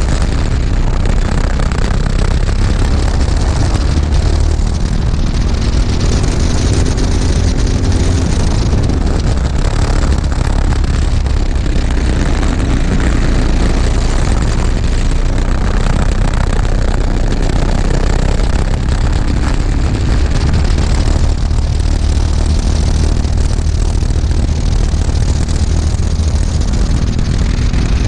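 Racing kart engine running hard, recorded from the kart itself, its pitch climbing slowly along the straights, under loud, steady wind rumble on the microphone.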